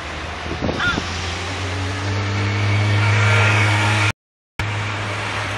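A road vehicle's engine running with a steady low hum that grows louder as it passes, over a few short gliding calls about half a second in. The sound cuts out for a moment just after four seconds.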